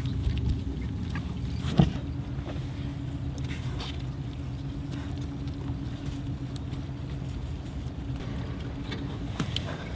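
Low steady engine rumble with a faint hum over it, and one sharp knock a little under two seconds in.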